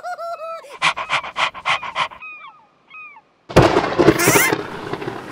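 Cartoon sound effects: short chirpy gibberish voice sounds and a quick run of steps, then, after a brief silence about three and a half seconds in, a loud thunderclap that runs on into steady rain.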